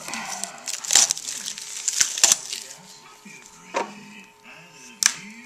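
A plastic trading-card pack wrapper crinkling and tearing open, with sharp snaps as it is pulled apart, then a few single clicks as the cards are handled.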